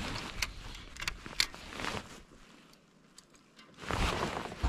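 Gusty wind buffeting the microphone, with a few sharp clicks in the first two seconds. The wind drops to a brief lull about halfway through, then surges again near the end.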